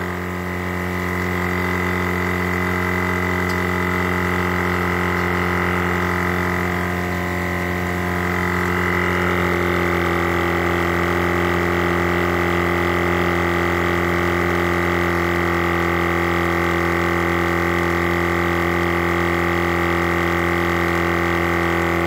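A twin-cylinder 300 W, 60 L/min portable air compressor running steadily as it inflates a car tyre from flat, a continuous motor-and-piston drone.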